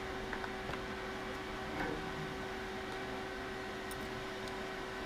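Steady background hum and fan-like hiss of a workshop with a constant tone, with a few faint clicks and taps of handling.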